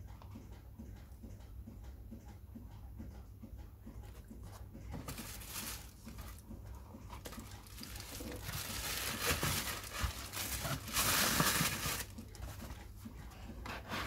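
Tissue paper crinkling and a cardboard shoebox being handled as a shoe is set back in the box and the lid closed. The rustling comes in bursts that grow louder, the loudest about eleven seconds in, over a faint steady hum.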